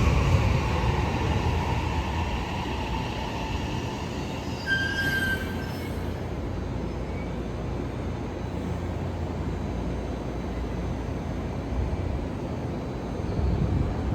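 Keisei 80000 series electric train on the rails. Its rumble eases off over the first couple of seconds and then holds steady, with a brief high squeal about five seconds in.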